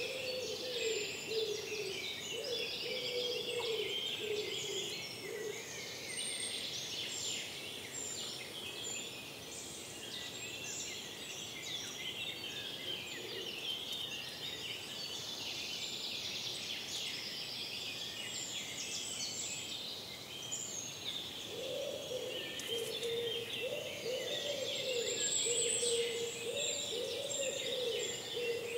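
Morning forest chorus of many songbirds, their chirps and trills overlapping throughout. A low-pitched repeated call sounds under them in the first few seconds and again from about two-thirds of the way through.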